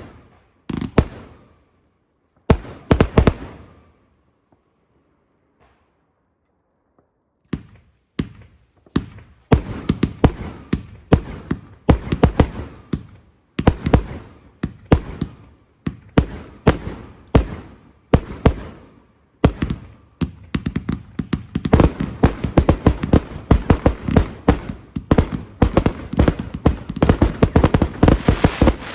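Fireworks going off: a few sharp bangs, a gap of about four seconds, then bursts coming faster and faster until they run together into a dense barrage of bangs and crackling.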